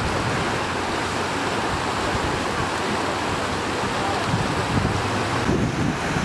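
Swollen, muddy floodwater rushing fast in a steady noise along a torn riverbank. In the second half, wind gusts buffet the microphone.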